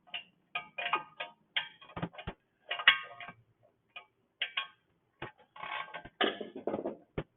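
Hand speed ratchet clicking and metal clinking as bolts are run in and snugged on a small engine's exhaust heat shield: irregular sharp clicks, with a denser run of ratcheting near the end.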